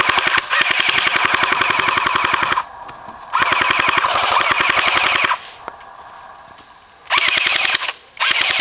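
Airsoft Thompson submachine gun replica firing full-auto: a long burst of rapid, even clicks, a second burst after a short pause, then two short bursts near the end.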